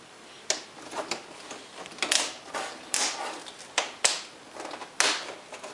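Plastic screen bezel of an HP Envy m6 laptop being pried off with a caulking knife: a string of about eight sharp, irregular clicks as the bezel's retaining clips unsnap.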